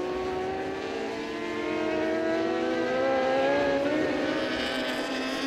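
Several racing superbikes running at high revs, their engine notes overlapping and sliding up and down in pitch as they pass. Loudest a little past the middle.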